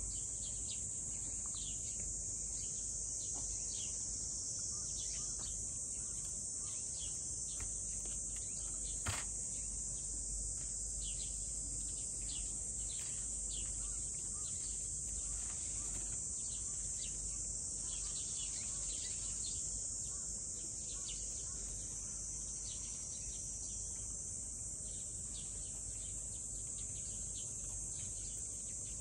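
A steady high-pitched insect chorus, with frequent short bird chirps over it and a low outdoor rumble underneath. A single sharp click comes about nine seconds in.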